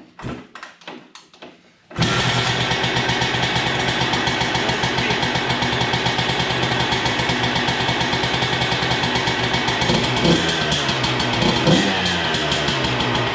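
2003 Suzuki RM125 two-stroke single-cylinder dirt bike engine being kick-started on a little choke: a few knocks from the kickstart, then it catches about two seconds in and runs steadily. Near the end there are a few brief revs.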